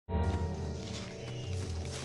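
Film score music with sustained low notes that shift pitch, starting abruptly.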